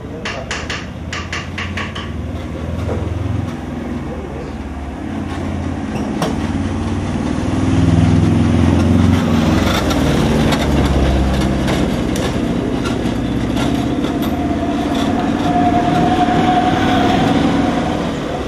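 Road traffic passing close by: a lorry's engine rumbles past, loudest around eight to eleven seconds in, with a quick run of rattling clicks at the start and a steady tone for a few seconds near the end.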